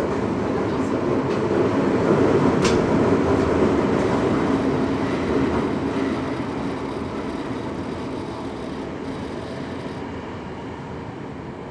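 Eidan 05 series (N05) subway train running in the tunnel, heard from inside the car: a steady rumble that swells over the first few seconds and then slowly fades. There is one sharp click about two and a half seconds in.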